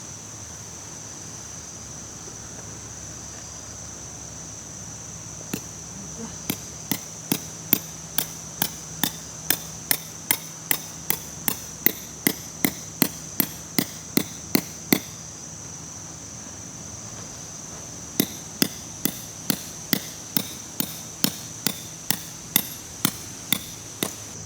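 A hammer striking at an even pace, about two or three blows a second, in two runs with a pause of about three seconds between them, typical of driving tent pegs into the ground. A steady high-pitched hum runs underneath.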